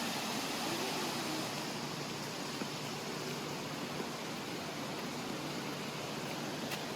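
Steady, even hiss with no distinct events. A faint wavering tone fades out in the first second and a half.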